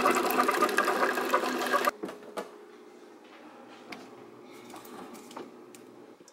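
Single-serve pod coffee maker's pump running loudly as it brews coffee into a mug, cutting off abruptly about two seconds in. After that, a faint steady hum with a few light clicks.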